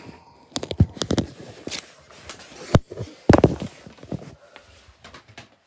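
Camera handling noise: a string of irregular knocks, bumps and rubbing as the camera is moved about over a wooden tabletop, with the heaviest thumps a little past three seconds in, then dying away.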